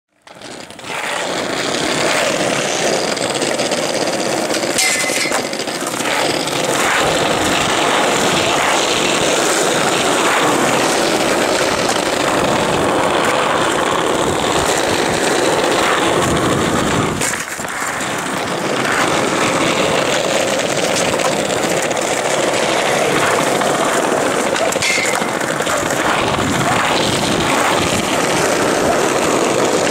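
Skateboard wheels rolling over asphalt, a steady rough rolling noise, with two sharp clacks of the board, about five seconds in and again late on.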